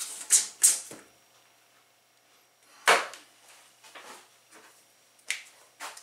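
Handling noise from measuring a pallet plank with a tape measure: short rustles and clicks, then one sharp knock about three seconds in, and a couple more clicks near the end.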